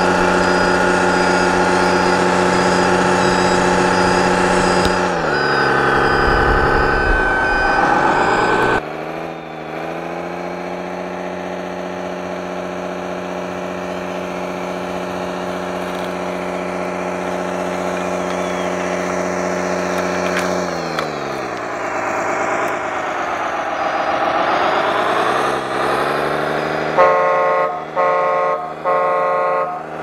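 Simulated diesel engine sound of an electric 1/14-scale RC bulldozer: a steady engine drone that twice sags in pitch and comes back up. Four short horn blasts sound near the end.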